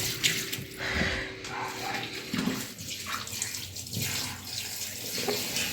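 Water running and splashing in the tub of a single-tub washing machine as it is filled for a wash, with a few light knocks.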